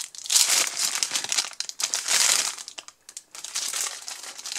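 A paper burger wrapper crinkling and rustling as it is unfolded by hand. The rustle comes in bursts, is loudest in the first half, pauses briefly about three seconds in, then goes on more softly.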